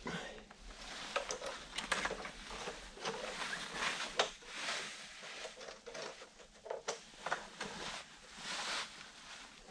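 Irregular light knocks, clicks and scraping rustles of handling noise, as of wood and tools being moved about by hand.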